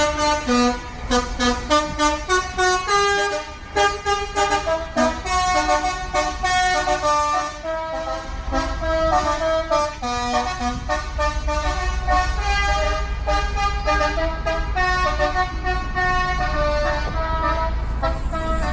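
A fuel tanker truck's telolet horn, a multi-tone musical air horn, playing a melody of tooting notes that change pitch in quick steps. Under it the truck's engine rumbles low, growing louder past the middle.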